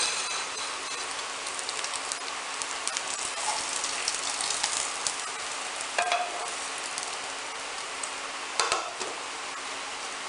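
Hot oil sizzling and crackling in a frying pan as fried egg whites are slid out onto a plate, with a few short knocks of the spatula against the pan, one about six seconds in and one near the end.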